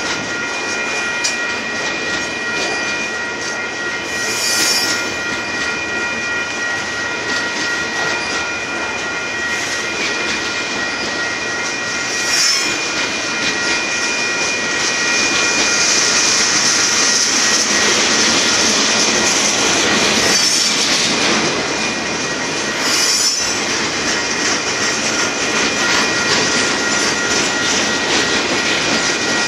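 Union Pacific freight train's boxcars rolling past a grade crossing: a steady rumble and clatter of wheels on rail, with brief high wheel squeals about four times. A steady high ringing from the crossing bell runs underneath.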